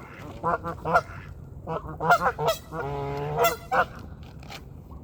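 Geese honking in a rapid string of short calls, with one longer drawn-out call about three seconds in, as the birds squabble over the feed.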